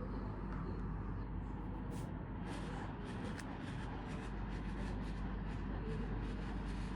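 Panasonic WKJ-series air conditioner running with a steady hum. From about two and a half seconds in, a quick irregular run of faint ticks and crackles sounds over it.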